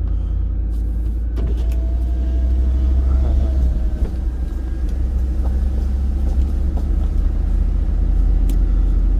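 A truck's engine and road rumble heard from inside the cab while driving at a steady pace, a constant low drone.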